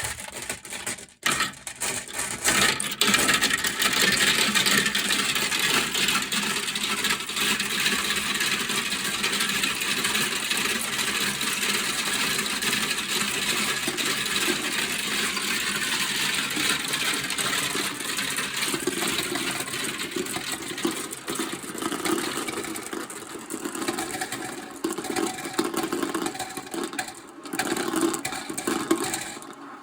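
Many marbles rolling and clattering down a plastic marble run track in a dense, continuous rattle. It starts with a few scattered clicks, then thickens into a steady clatter, and grows more uneven in the last third.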